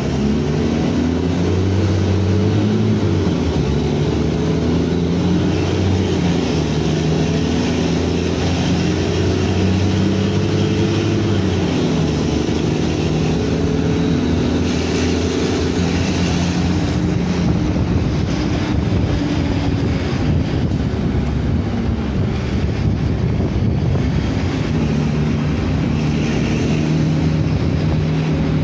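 Cummins ISBe 6.7 inline-six diesel of an Agrale MT15 city bus running through a free-flowing straight exhaust, heard from on board while driving. The engine note climbs and drops several times as the bus accelerates and the automatic gearbox changes gear.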